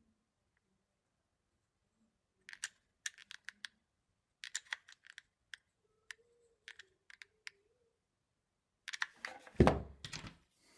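Light clicks and taps of small laser-cut wooden pieces being handled and fitted together, then a louder knock with a low thud near the end.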